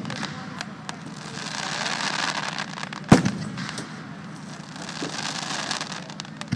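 Aerial fireworks: a steady crackle of bursting shells with one sharp, loud boom about three seconds in, its echo trailing off, heard through a phone microphone.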